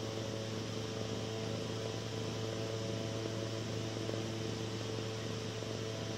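A steady low electrical-sounding hum with an even hiss over it, unchanging throughout.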